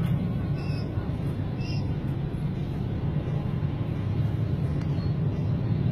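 Road traffic heard from inside a car: a steady low rumble of engines as a stream of motorcycles files past close by. Two short high beeps come about a second apart near the start.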